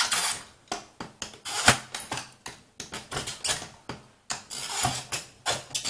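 Utility knife blade scraping and cutting along the edge of a rigid clear plastic clamshell package, in short, irregular strokes; one stroke, a little under two seconds in, is louder than the rest.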